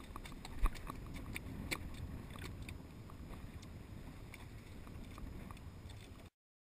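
A grouper being handled on a fiberglass boat deck: scattered clicks and knocks with one louder thump about half a second in, over a steady low rumble of wind and water. The sound cuts off abruptly near the end.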